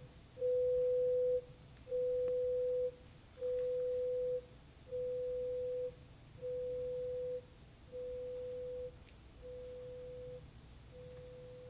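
Eight beeps of a 500 Hz pure tone, each about a second long and a second and a half apart, each one quieter than the one before. These are audiogram test tones stepping down toward the threshold of hearing.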